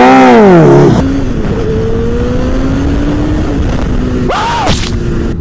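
Sport bike engine, likely a Honda CBR1000RR inline-four, revving hard as the bike passes close by, its note dropping sharply in pitch. Then the engine pulls steadily under acceleration, its pitch climbing slowly, with a brief blip of revs near the end.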